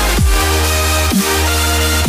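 Background electronic dance music with a deep held bass and booming kick drums that drop sharply in pitch.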